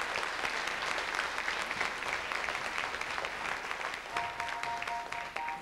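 Audience applauding, a dense patter of clapping that thins out about four seconds in, as two sustained keyboard notes begin underneath.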